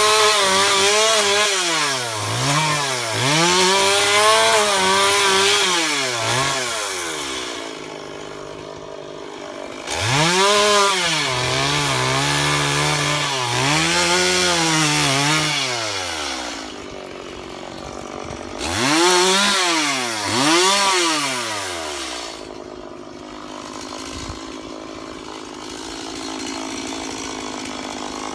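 Two-stroke chainsaw revved hard in repeated bursts while cutting wood, its pitch rising and falling with each squeeze of the throttle, with a long stretch at full revs in the middle. It drops back to a steady idle between bursts and settles at idle near the end.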